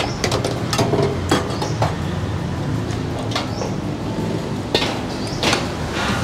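Metal fork and spoon clinking and scraping against a ceramic plate, irregular sharp clinks about every half second to second, over a steady low background hum.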